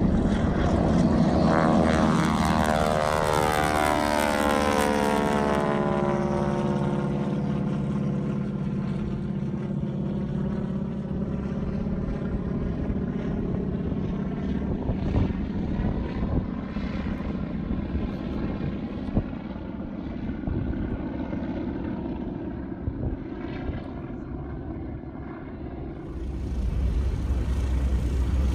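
Single-engine propeller plane, the North American T-6 Texan with its radial engine, droning loudly as it moves past and then slowly fading into the distance. Near the end a lower steady rumble takes over.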